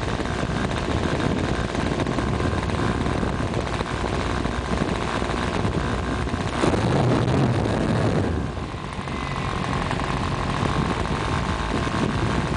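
Twin-cylinder gasoline engine of a large radio-control model airplane running steadily on the ground, heard close up from a camera mounted on the plane. About six and a half seconds in there is a click and the sound gets louder for a second or so, then dips briefly.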